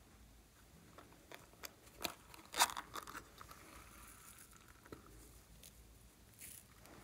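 Hands handling bead-covered slime and a soft silicone container, giving scattered crackles and clicks, with one louder crackly crunch about two and a half seconds in.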